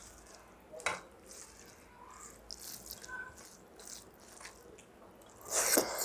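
Wet eating sounds: rice and saag being mixed and picked up by hand from a plate, with small squelches and clicks, a sharp click about a second in and a louder burst near the end.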